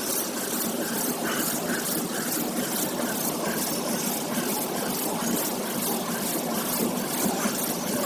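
Compressed-biscuit production line running: conveyor belts and their small gear motors make a steady mechanical hum. Over it comes a fast, even, high-pitched hissing pulse, several times a second.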